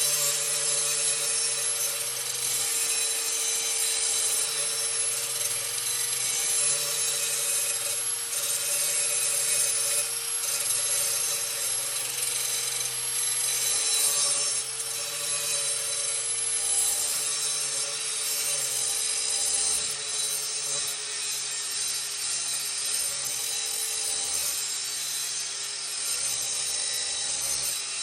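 Chicago Electric 4-1/2-inch angle grinder running steadily with its wheel grinding the steel edge of a lawnmower blade to sharpen it: a constant whine under a harsh grinding hiss.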